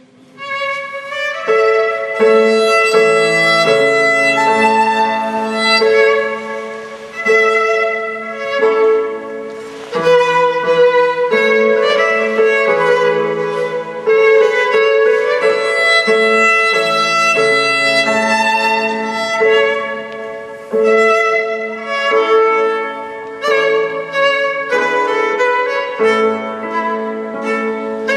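Classical instrumental music: a violin playing a melody over lower held notes, fading in over the first second or so.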